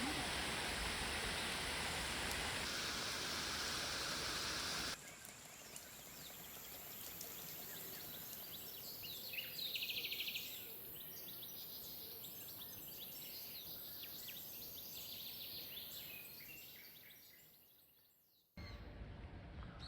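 Outdoor nature ambience in edited pieces: a steady rushing noise for about five seconds, then a sudden cut to a quieter scene with a thin high hiss and scattered short chirps, which fades out near the end before another cut.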